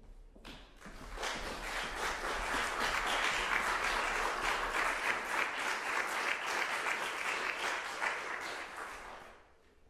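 Audience applauding, swelling up within the first second and dying away near the end.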